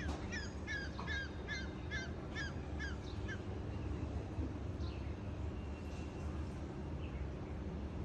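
A bird calling a quick series of about eight short, repeated, downward-slurred notes, between two and three a second, stopping about three and a half seconds in. A steady low rumble runs underneath.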